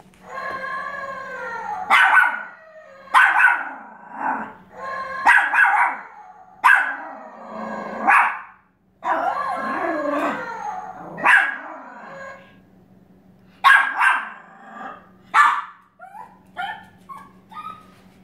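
Dog barking and howling: a long howl at the start, a string of sharp barks a second or two apart, another drawn-out howl around the middle, and a quick run of short yips near the end.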